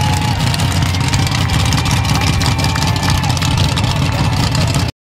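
Monster truck engine idling with a steady low rumble, cutting off suddenly near the end.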